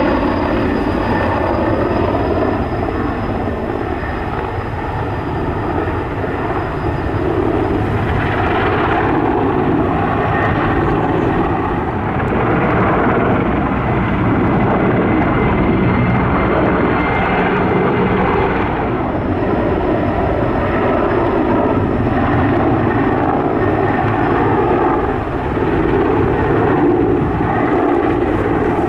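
Sikorsky S-64 Skycrane firefighting helicopter in flight, its main rotor and twin turbine engines giving a loud, steady rumble with a faint high turbine whine.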